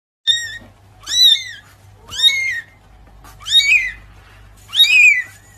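Kitten meowing repeatedly: five short, high-pitched mews about a second apart, each rising and falling in pitch.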